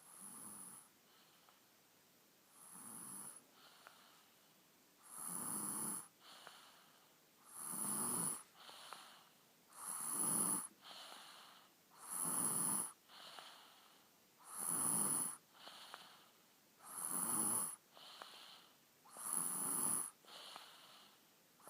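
A young boy snoring in his sleep: a snore on each breath in, about every two and a half seconds, each followed by a softer breath out. The first few snores grow louder.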